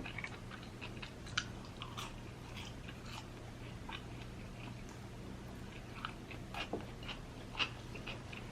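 Close, quiet chewing and mouth sounds of someone eating: soft, scattered clicks and smacks.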